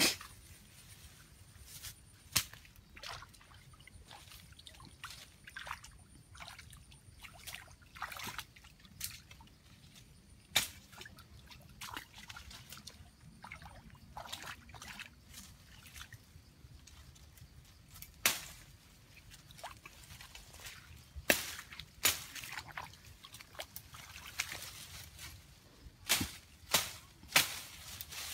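Water sloshing and splashing in small irregular spurts, with a handful of sharper splashes spread through.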